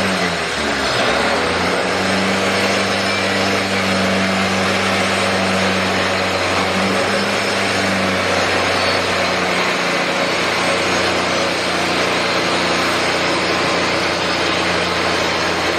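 DeWalt angle grinder with a diamond cup wheel grinding down a concrete floor, running steadily under load with a steady hum under dense grinding noise, with a shop vacuum running for dust extraction through the shroud.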